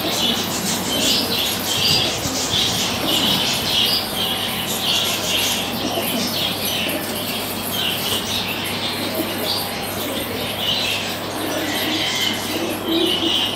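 Pigeon squab begging while its parent feeds it beak to beak: short, high squeaking peeps repeating about twice a second.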